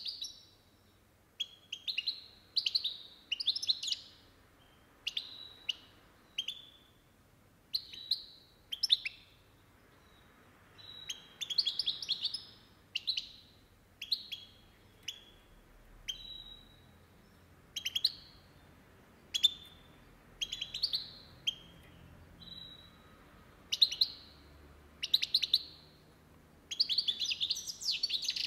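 Caged European goldfinch singing: short bursts of quick twittering notes about once a second, running into a longer stretch of song near the end.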